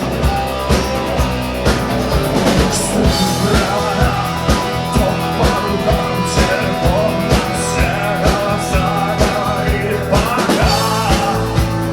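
A live rock band playing: the drum kit keeps a steady beat of about two hits a second under sustained guitar and bass, and a voice sings over it from a couple of seconds in.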